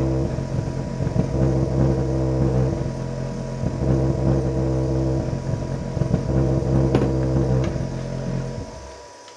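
Music with a heavy bass line played through an unboxed EMF subwoofer driven by a car-audio amplifier; the deep notes carry a buzz of overtones. It drops away near the end.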